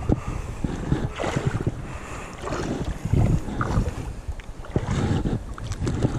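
Shallow river water sloshing around wading legs, with wind buffeting the microphone in uneven low rumbles.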